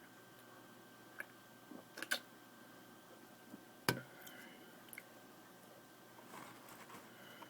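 Quiet room tone broken by a few scattered sharp clicks and taps, the loudest about four seconds in.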